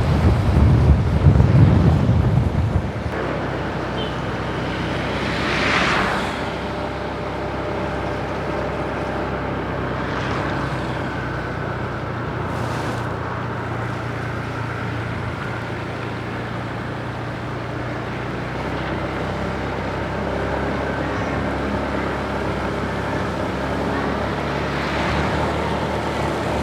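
Road vehicle running, a steady wash of road noise over a low engine hum. A louder low rumble comes in the first three seconds, and brief whooshes of passing traffic come about six seconds in and again near the end.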